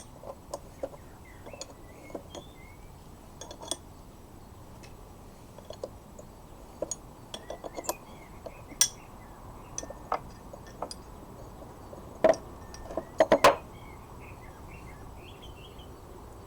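Metal parts of a vintage wrought-iron locksmith vise clinking and knocking as it is taken apart: scattered irregular clinks, with a cluster of louder knocks near the end.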